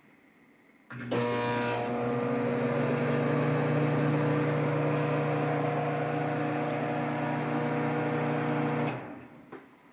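Samsung 1.9 cu ft microwave oven starting with a click and a harsh, rattling buzz for under a second: the strange vibration noise it makes on starting. It then runs with a steady hum for about eight seconds and shuts off shortly before the end.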